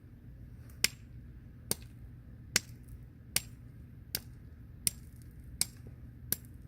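Hammer tapping a rock, eight sharp light strikes at a steady pace of about one every 0.8 seconds.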